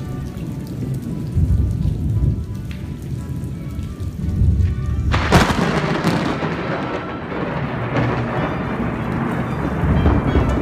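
Thunderstorm with steady rain and low rumbles of thunder. About five seconds in, a sharp, close thunderclap cracks and rumbles on for several seconds.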